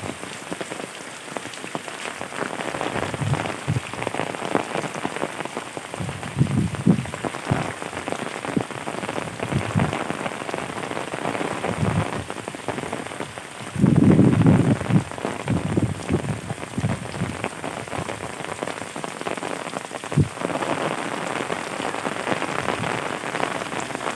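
Heavy rain falling steadily, with irregular louder and deeper spells, the strongest about two-thirds of the way through.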